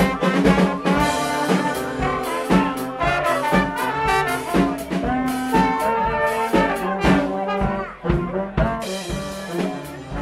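Live brass band playing: trombones, trumpets and saxophones over a drum kit beat. The sound briefly dips about eight seconds in.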